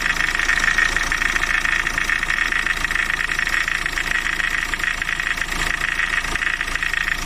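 Renault Laguna 3's engine running under the hood with a steady crunching from the air-conditioning compressor's pulley and clutch, louder with the extra electrical load of the lights switched on. The owner suspects the compressor clutch: first its bearing, then the clutch plate catching on the worn electromagnet ring.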